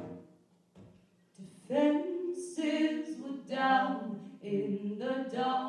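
Women's voices singing together in harmony with little or no accompaniment, starting about two seconds in after a quiet opening.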